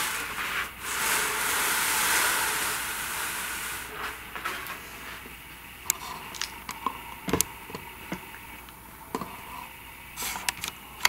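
A drawing board sliding and scraping across a table, a broad rubbing hiss lasting about three seconds, followed by a run of light knocks and taps as it is set in place.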